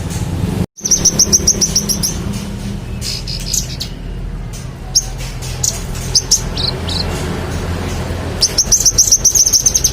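A manggaran songbird singing in lively, non-stop form: runs of rapid, sharp high chirps with scattered calls between them, rising to a dense, fast chirping run near the end. The sound drops out for an instant less than a second in.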